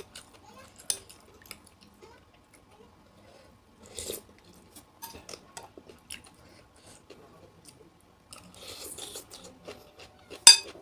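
Close-up chewing and crunching of an asinan Betawi salad of raw vegetables and fruit: irregular wet crunches and mouth clicks, busier about four seconds in and again for a couple of seconds near the end. A sharp click just before the end is the loudest sound.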